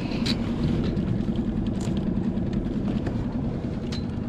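Small boat's outboard motor idling with a steady low hum, with a few light clicks from the wire crab trap being handled.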